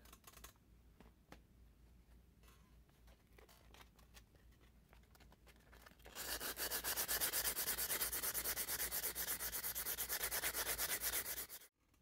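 180 grit sandpaper rubbed by hand along the edges of G10 handle scales, rounding them over. The first half holds faint handling clicks. About halfway in, quick back-and-forth strokes start, several a second, and stop abruptly near the end.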